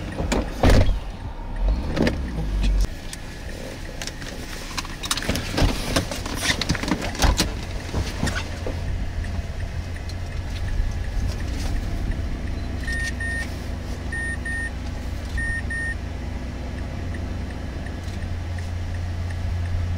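A car driving, heard from inside the cabin. There are knocks and clatter through the first several seconds, then a steady low engine and road drone. Just past the middle, a short electronic double beep sounds three times, a little over a second apart.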